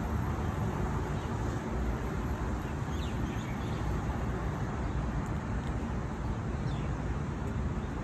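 Steady low rumble of road traffic, with a couple of faint high chirps, one about three seconds in and one near the end.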